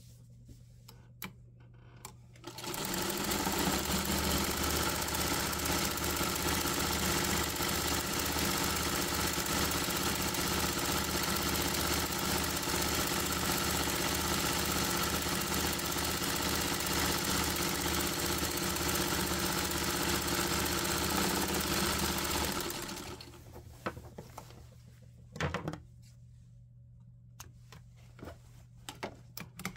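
Vintage black sewing machine stitching a seam through cotton flannel, running steadily with an even fast pulse for about twenty seconds, then stopping. A few light clicks follow as the fabric is handled.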